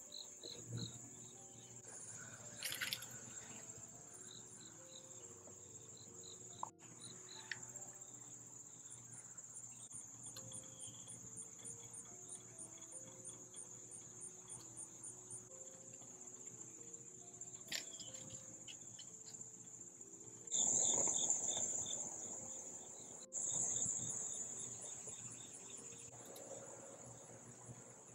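Crickets chirping: a steady high trill with rows of faster pulsing chirps over it, growing louder about two-thirds of the way through. A few sharp clicks are heard along the way.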